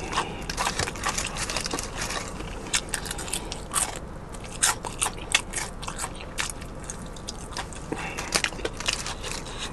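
Close-up biting and chewing of crispy fried chicken wings: a dense, irregular run of crackles and crunches from the fried breading.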